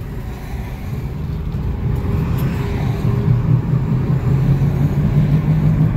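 Low roaring drone heard inside the cabin of a 2009 Jeep Compass driving slowly, growing steadily louder. The mechanic takes it for a typical front wheel hub bearing noise, but warns that a CVT transmission can give off the same kind of roar.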